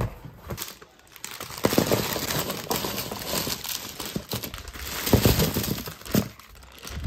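Plastic-wrapped sweets and chocolate bars poured and dropped into a cardboard box: wrappers crinkling and rustling, with a few soft thuds as the handfuls land on the cardboard.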